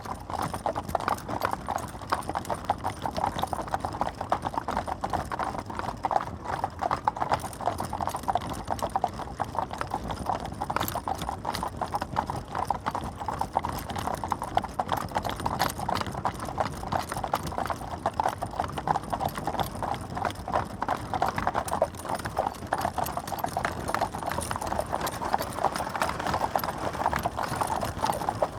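Horse-drawn carriage: a horse's hooves clip-clopping in a steady, unbroken run of hoofbeats.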